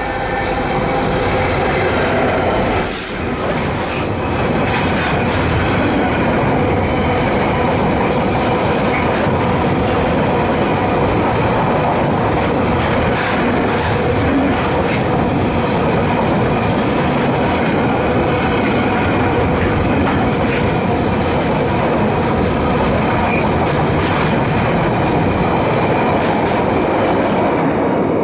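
Freightliner Class 66 diesel locomotive passing close by, followed by its long train of container wagons rolling past with a steady loud rumble and clatter of wheels on rail. The noise eases off near the end as the last wagon clears.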